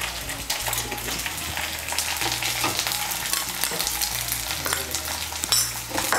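Sliced onions and a ground paste of cumin, ginger, black pepper and green chilli sizzling in hot oil in a non-stick kadai, with a steady hiss and small crackles. A spatula stirs and scrapes them through the pan.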